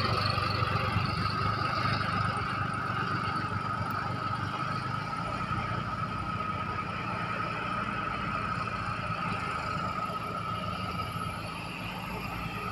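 John Deere tractor-loader's diesel engine running, a steady low hum with a steady high-pitched whine over it, slowly fading as the tractor moves away.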